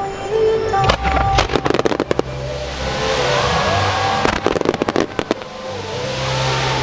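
Starmine fireworks display: rapid clusters of sharp aerial shell bursts about a second in and again around four to five seconds, with a dense high hissing crackle from the burning stars in between and after.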